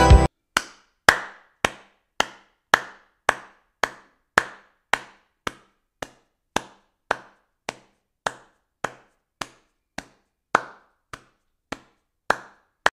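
A steady series of short, sharp knocks, a little under two a second, each with a brief ringing tail. The strokes vary a little in strength.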